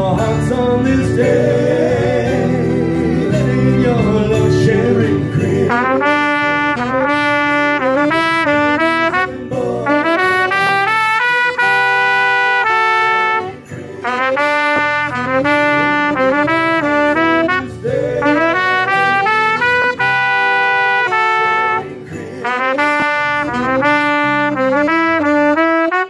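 Trumpet and saxophone playing a melody together in phrases a few seconds long, with fuller band accompaniment and bass in the first few seconds. The music stops abruptly at the end.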